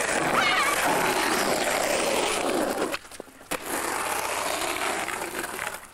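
Skateboard wheels rolling over pavement, a steady rush of noise that drops out for about half a second around three seconds in and then resumes.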